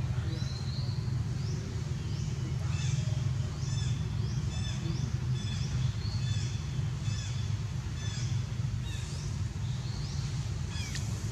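Short high-pitched animal chirps, repeating about every half second, over a steady low rumble.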